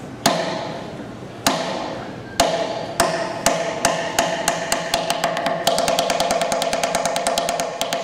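Tap dancer's shoes striking a wooden tabletop: single sharp taps about a second apart at first, coming quicker, then breaking into a rapid run of taps about two-thirds of the way through.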